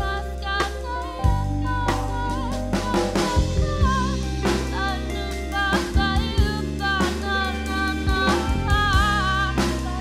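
Band music with a drum kit keeping a beat, a steady bass line and a sung melody over it.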